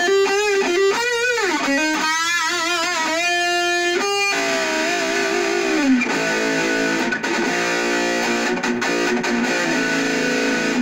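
Jackson KVXMG electric guitar played through an Orange Micro Dark hybrid tube amp and PPC108 speaker cabinet with distortion: a single-note lead line with bends and vibrato for about four seconds, then held notes and ringing chords.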